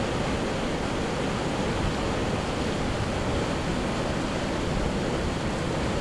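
Havasu Creek rushing steadily over a small cascade of white water into a pool.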